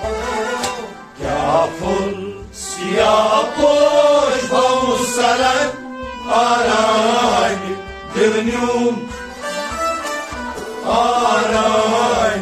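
Men singing a Kashmiri Sufi devotional song (kalam) in long melismatic phrases, accompanied by a harmonium's steady held chords, with a rabab and a bowed string instrument.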